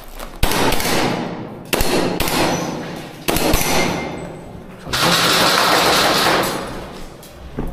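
Airsoft gunfire in four long full-auto bursts, each starting suddenly and trailing off, about one and a half seconds apart; the last burst is the longest.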